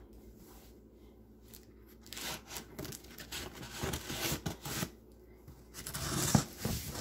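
Scissors cutting through plastic wrap and packing tape along a cardboard box's seam: irregular scraping and tearing that starts about two seconds in, pauses briefly, then picks up louder near the end with a sharp click.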